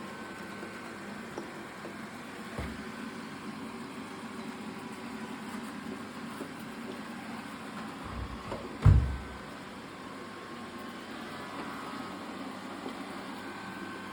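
Xiaomi S20 robot vacuum running steadily while cleaning, its suction fan and brushes giving an even hum with a faint whine. A low knock comes a few seconds in and a loud thump about nine seconds in.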